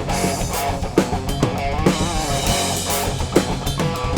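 Band music with a steady beat: drum kit, bass and guitar playing together.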